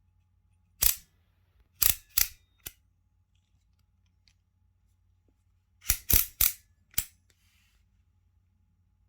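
Sharp mechanical clicks and light knocks from handling an air rifle and its fittings during unboxing: four clicks over about two seconds, a pause, then a quick group of four more.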